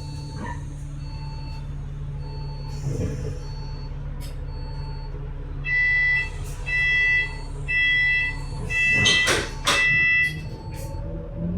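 Bus engine humming steadily inside the bus, with a faint short beep repeating a little more than once a second. About six seconds in, five loud electronic beeps sound about a second apart, the bus door warning. A hiss and clatter near the fourth and fifth beeps are the doors working.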